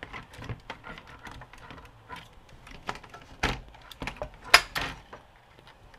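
Hands working inside an opened VHS VCR, giving scattered light clicks and clacks of plastic and metal parts, with two sharper knocks about three and a half and four and a half seconds in.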